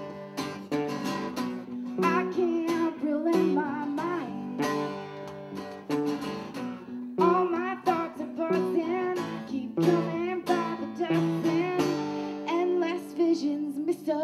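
Live acoustic blues-rock duo: acoustic guitars strummed and picked, one keeping rhythm and one playing lead lines, with a woman singing.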